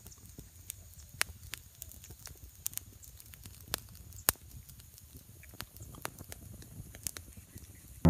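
Small fire of dry twigs and sticks crackling, with irregular sharp pops.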